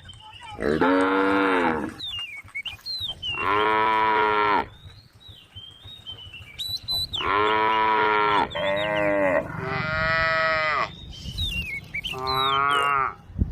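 Cattle mooing: about six long moos of a second or so each, one after another with short gaps, two of them running almost back to back just past the middle.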